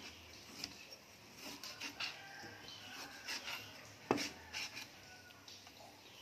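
Cleaver slicing raw meat on a plastic cutting board: irregular knocks of the blade against the board, the loudest about four seconds in.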